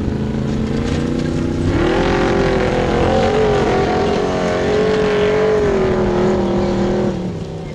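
Formula Offroad car's engine revving hard under load as it climbs a steep sand hill, the revs jumping up about two seconds in, holding high and wavering, then dropping off near the end.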